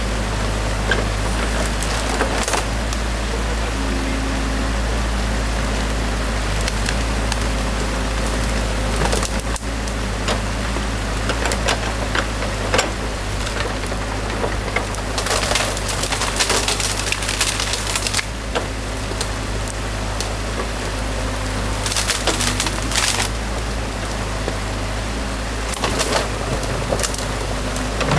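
A mini excavator's engine runs steadily while its bucket tears sticks and branches out of a beaver dam, with bouts of wood cracking and snapping, the longest about halfway through and another a few seconds later.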